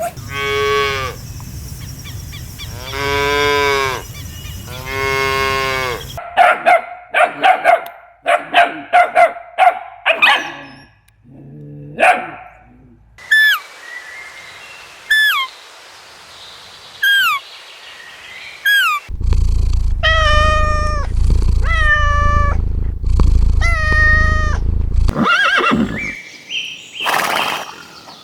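A run of different animal calls, one kind after another: three long drawn-out calls, then a quick string of short sharp calls, five short falling chirps spaced about a second apart, and three more pitched calls.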